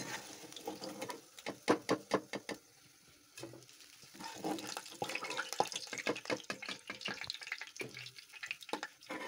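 Hot oil sizzling in a karahi, with repeated sharp clicks and scrapes of a metal slotted spoon against the pans as fried semolina gulab jamun are lifted out and dropped into sugar syrup.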